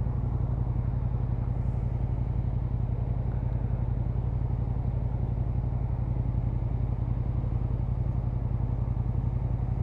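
Motorcycle engine idling steadily, a low even pulsing hum.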